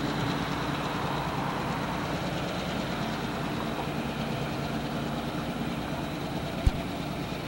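Distant EMD GP9R diesel locomotive engine running steadily as the train pulls away. There is a single sharp click near the end.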